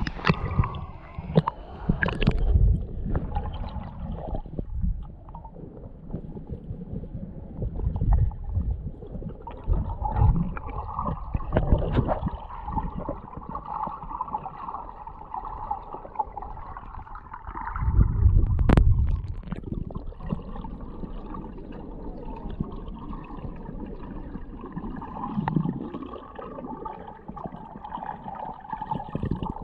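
Muffled underwater gurgling and sloshing of water moving against an action camera's waterproof housing, with irregular low rumbling surges as the camera is moved. About two-thirds of the way through there is one louder surge with a sharp click.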